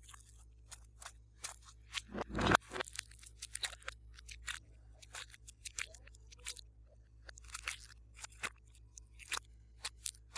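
Glossy slime being worked by hand, giving irregular sticky clicks and small pops, with a louder squelching burst about two and a half seconds in.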